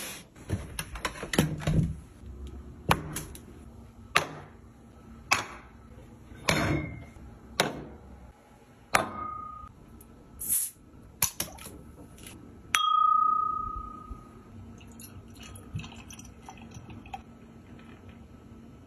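A run of sharp knocks and clicks, then a beer bottle cap pried off with the back of a cleaver: a sharp metallic clink with a bright ringing tone that fades over about a second.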